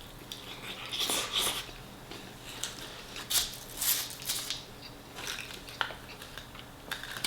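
A person biting into and chewing fried chicken close to the microphone: irregular crisp crunches and wet mouth sounds, the loudest about a second in and again around three and a half to four seconds in.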